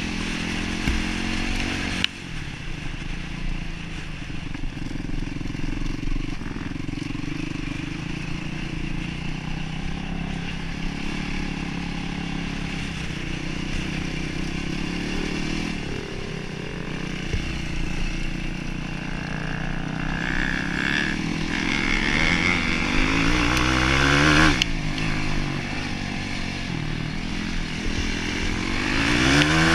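Yamaha YFZ450R quad's single-cylinder four-stroke engine running under way, revs rising and falling as it is ridden over rough ground, with several sharp climbs in revs in the last ten seconds.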